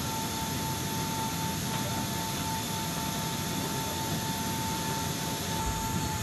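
Steady gas-turbine whine, one high tone held over a low rumble, from a turbine engine running at low power while a tank is guided aboard a cargo aircraft.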